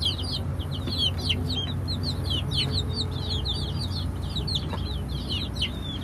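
Newly hatched Muscovy ducklings and young chicks peeping non-stop: a dense stream of short, high, downward-sliding peeps, several a second, over a low steady hum.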